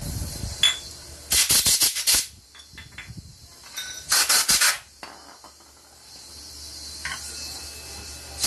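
Blasts of compressed air blowing dust off scooter CVT and clutch parts: two bursts of hiss, each a quick run of puffs, about a second and a half in and about four seconds in, with a few small clicks between.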